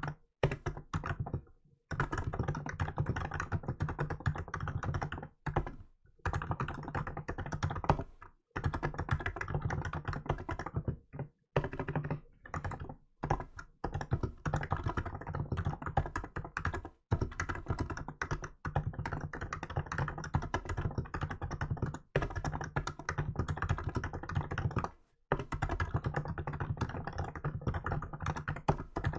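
Fast touch-typing on a Hansung GK868B electrostatic capacitive (contactless) keyboard fitted with milk keycaps: dense runs of keystrokes lasting a few seconds each, broken by short pauses.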